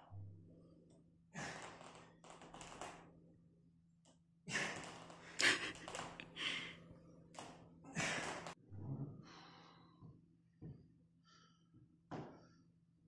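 A man breathing hard through push-ups, with loud gasping exhales, and a couple of short thunks near the end.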